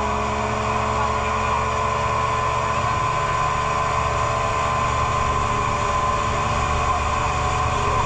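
Boat engine running steadily at cruising speed, with the rush of water and spray along the hull.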